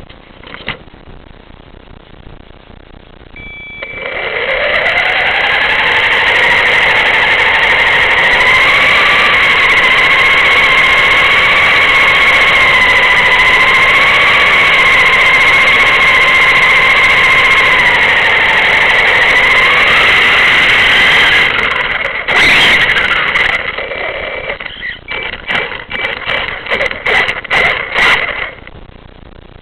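High-pitched electric motor whine, rising in pitch as it spins up about four seconds in, then held with a slight wavering pitch until it cuts off; after it, a run of short, irregular whine pulses as the motor is switched on and off.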